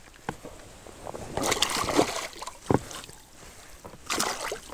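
A hooked pike thrashing in the water as it is landed by hand, splashing in two bursts, about a second and a half in and again near the end.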